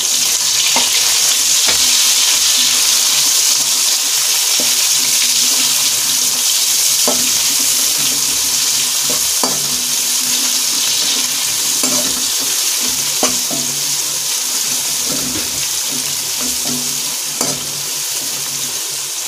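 Sliced onions sizzling loudly in hot oil in a metal kadhai, stirred with a metal spatula that scrapes and clinks against the pan every second or so. The sizzle is strongest just after the onions go in and eases a little later on.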